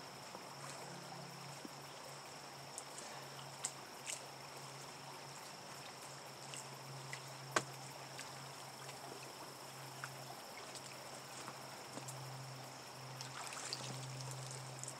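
Insects chirring as a steady high-pitched tone, with a low hum that comes and goes. A few faint clicks and rustles come from a magnet-fishing rope being hauled in by hand, growing louder near the end.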